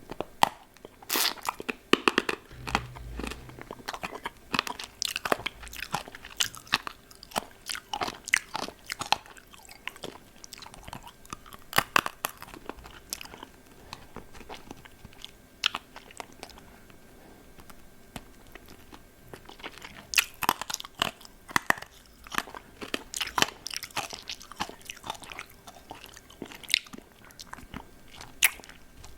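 Close-up mouth sounds of a hard lollipop candy being bitten and chewed: a string of sharp, irregular crunches and clicks, with a quieter lull around the middle.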